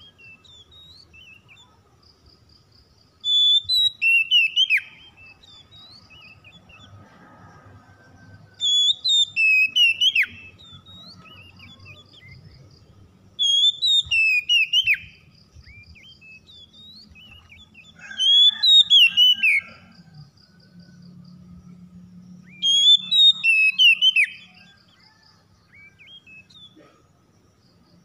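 Male Oriental magpie-robin singing: five loud phrases of rapid, whistled notes sliding up and down, each lasting about one and a half seconds, with about five seconds between them.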